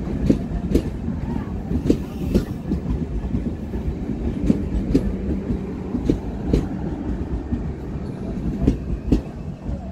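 Indian Railways express train's passenger coaches rolling slowly out of the station, the last being the luggage-brake and generator car. The wheels knock in an irregular clatter over a steady low rumble and hum.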